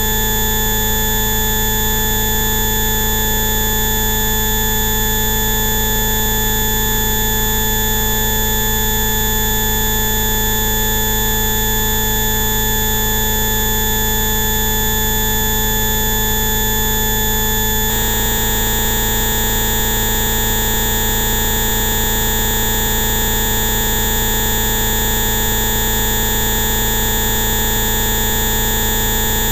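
Electronically generated steady tones sounding together as a continuous drone, a Rife-frequency sound-therapy track. About eighteen seconds in, the whole set of tones switches abruptly to a new combination.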